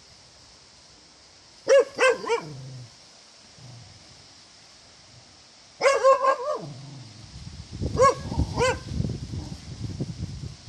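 A dog barking in short sharp clusters: three barks about two seconds in, a quick run of barks around six seconds, and two more around eight seconds. A low rough rumbling noise runs under the later barks.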